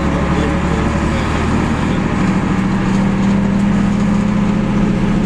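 Bristol MW single-deck bus's diesel engine running steadily while the bus drives along, heard from inside the driver's cab. The engine note shifts about two seconds in.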